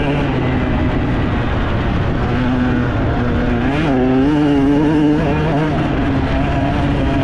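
Enduro dirt bike engine running hard on the trail, its revs rising and falling with the throttle, climbing sharply about four seconds in.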